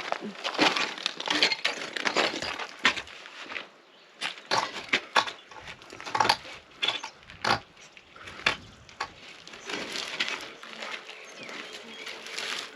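Demolition of an old stone-and-timber wall: irregular knocks and crashes with crunching and splintering as masonry and wood are broken and fall, with a short lull about four seconds in.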